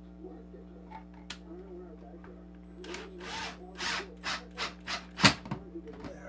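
Cordless drill biting into wood in a run of six or seven short bursts, the last the loudest, ending with a sharp crack.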